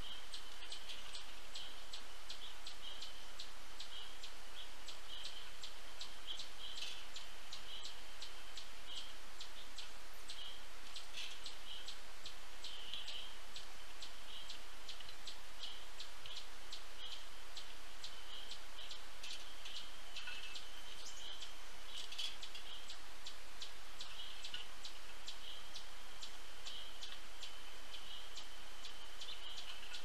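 Outdoor ambience at a bird feeder: an even, high chirping pulse, about three a second, over a steady high hum, with a few brighter chirps standing out now and then.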